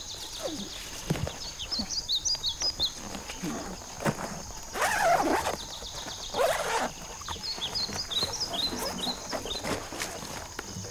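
Forest ambience: a steady high insect drone with two spells of quick bird chirps, scattered small clicks and rustles, and two louder noisy bursts about five and six and a half seconds in.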